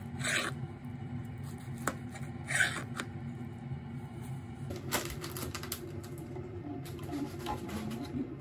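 Kitchen knife slicing through a soft rolled omelette and clicking and scraping against a ceramic plate: short cutting strokes near the start and again about two and a half seconds in, with a few sharp taps of the blade.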